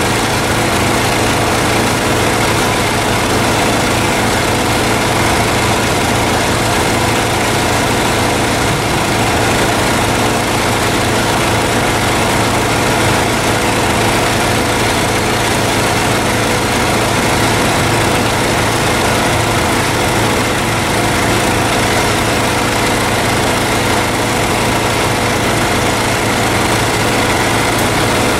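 Crop sprayer's engine idling steadily, an even hum that does not change, keeping the tank's agitation running while dry atrazine is mixed in.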